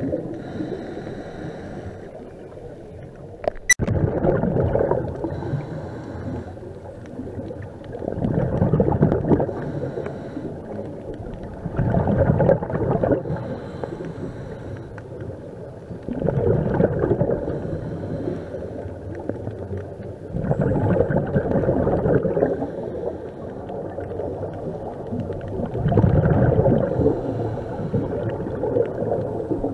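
Scuba diver breathing through a regulator underwater: a burst of exhaled bubbles gurgles out about every four seconds, with a fainter hiss in between. There is one sharp click about four seconds in.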